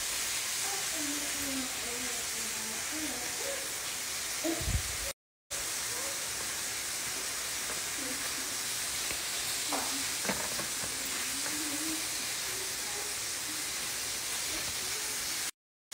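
A steady hiss, with faint voices talking in the background and a short knock about four and a half seconds in. The sound cuts out completely for a moment about five seconds in.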